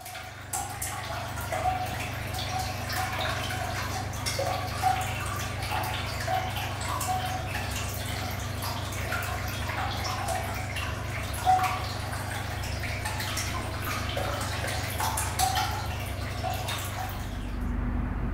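Water dripping from a leaking ceiling: many quick, irregular drops over a low steady hum. Near the end the dripping stops and gives way to a low rumble of traffic.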